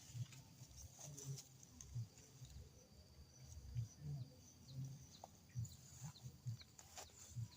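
Wild spotted dove cooing in short, low notes repeated at irregular intervals, a call the recordist finds unusual. A steady high buzz runs underneath.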